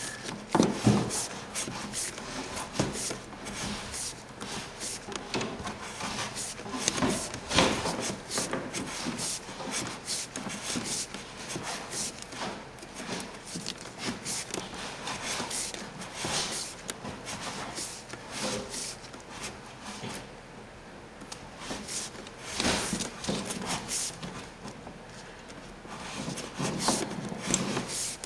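Sheathed electrical cable being pulled by gloved hands through a hole in wooden wall framing: irregular rubbing and scraping, with scattered clicks and knocks.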